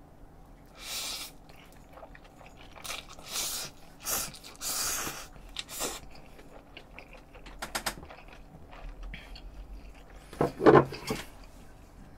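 A person chewing and slurping a big mouthful of spicy instant noodles, in scattered wet bursts. About ten and a half seconds in comes a short, louder vocal sound from the eater.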